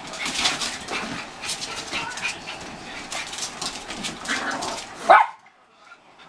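Puppies play-fighting, with repeated yips and small barks. A loud, high yelp comes about five seconds in, and then the sound cuts off suddenly.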